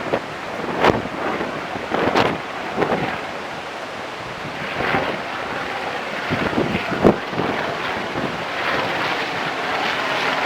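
Storm wind gusting hard against the microphone in irregular blasts, over a steady rushing of heavy surf; the buffeting eases into a steadier rush near the end.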